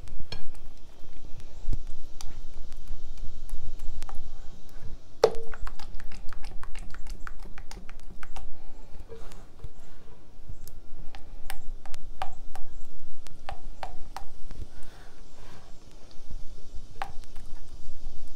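Thick ricotta batter being stirred and whisked by hand in a glass bowl: irregular clicks and taps of the utensil against the glass, with one louder ringing knock about five seconds in.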